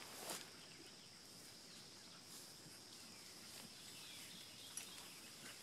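Near silence in woodland: a faint, steady, high-pitched insect drone, with a brief rustle of brush about a quarter of a second in.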